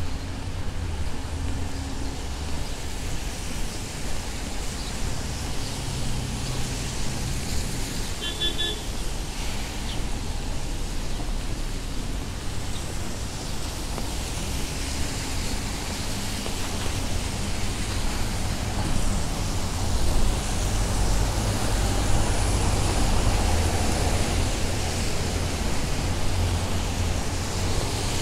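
City road traffic with tyres hissing on wet pavement. The low rumble of a passing vehicle swells louder about twenty seconds in. A brief burst of quick high-pitched beeps comes about eight seconds in.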